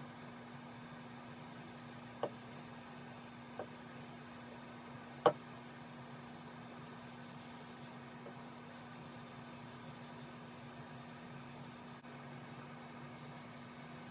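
Faint scratching or rubbing over a steady low hum, broken by three short clicks; the sharpest click comes about five seconds in.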